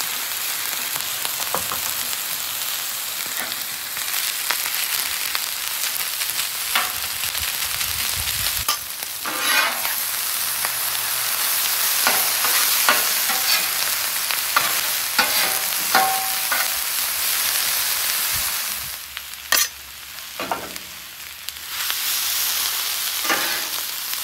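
Garlic, rice and chopped vegetables sizzling in oil on a hot flat-top griddle, a steady hiss, with metal spatulas scraping and tapping on the cooking surface again and again. The sizzle drops lower for a couple of seconds about three-quarters of the way through.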